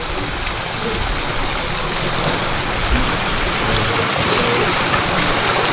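Steady rush and splash of water in a fish pond, the surface churning around a person standing in it.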